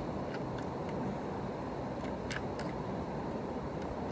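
A few faint clicks and taps of a toy tow truck model being handled, over a steady background hiss.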